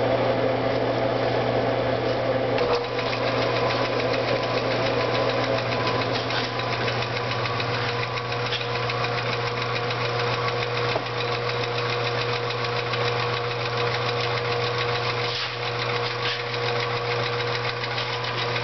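Rebuilt 25 lb Little Giant power hammer idling: its electric motor and belt-driven flywheel run steadily with a hum and a fast light ticking, and the ram is not yet striking.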